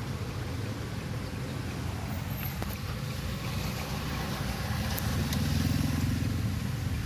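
A motor vehicle engine running with a low rumble. About five seconds in it swells and rises in pitch for a second or two, as if revving or passing close, then eases off.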